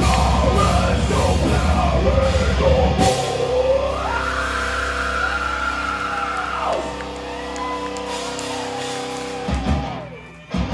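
A heavy metal band playing live, with distorted guitars, bass and drums. The busy drumming stops about three seconds in, giving way to held chords under a long high note. The music dips briefly near the end, then comes back in.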